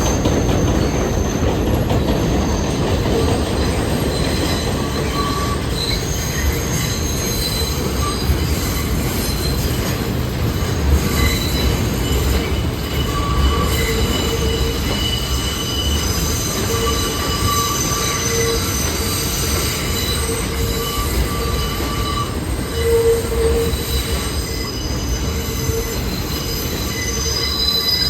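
New York City subway train running slowly through a station, its wheels squealing on the rails in several high, wavering tones over a steady low rumble.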